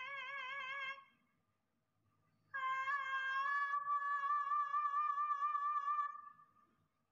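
A high female voice singing long held notes with vibrato, as background music. One note breaks off about a second in, and after a short gap a second note is held steadily for nearly four seconds before fading.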